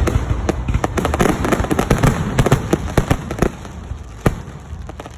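Fireworks display: a dense rapid volley of crackling bursts and bangs that thins out after about three and a half seconds to scattered separate bangs, with one sharp bang just past four seconds.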